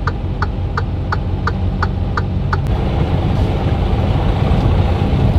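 Semi-truck's diesel engine idling, heard from inside the cab. Over it runs a rapid ticking, about three ticks a second, that stops with a click about halfway through.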